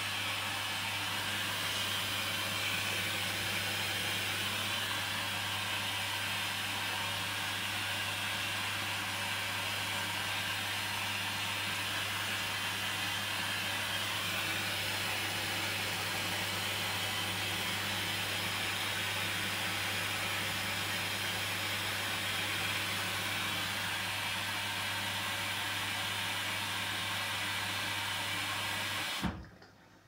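Hoover Dynamic Rapid 14 washing machine taking in water for the final rinse: a steady rush and hiss of inflowing water with a constant low hum. It cuts off suddenly near the end.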